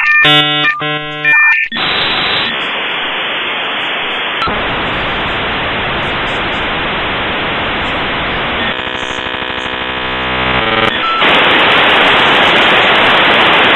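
Dial-up modem handshake: a couple of seconds of beeping answer tones and warbling tone bursts, then a long hiss of static with a rasping buzz about nine seconds in, all held within a telephone line's narrow range.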